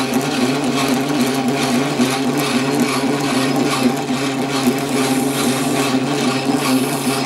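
Small metal lathe running at about 220 rpm with a cut knurling tool cutting a knurl into a 25 mm brass bar: a steady motor and gearing hum.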